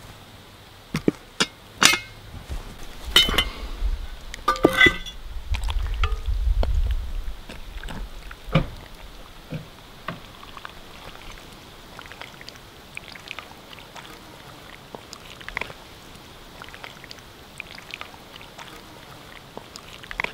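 Sharp clinks and knocks of a cast-iron Dutch oven's metal bail handle and lid as the pot is lifted and opened, bunched in the first five seconds, followed by quieter small knocks and light sloshing of broth as pieces of stewed groundhog are pulled out by hand.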